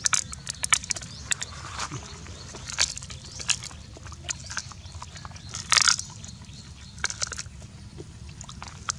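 A person eating, biting and chewing food with irregular crisp clicks and crunches over a steady low hum.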